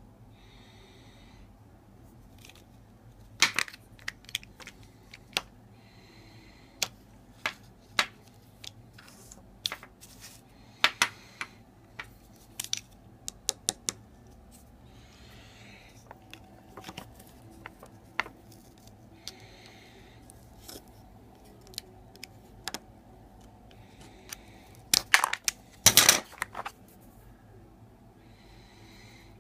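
Nissan key fob's plastic casing and coin-cell battery handled by hand: a long run of sharp small clicks and taps, with a burst of louder clicks near the end, and a few soft hissy rustles in between.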